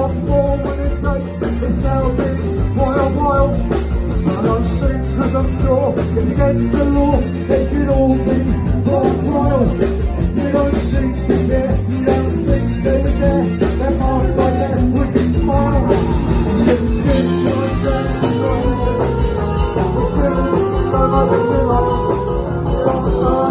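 Live band playing an upbeat song, with a male lead singer over drums and bass keeping a steady beat.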